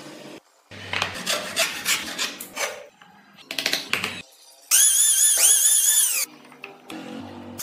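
Chisel strokes scraping and paring wood in a quick run of short bursts, then a loud high tone that rises and falls twice, over background music.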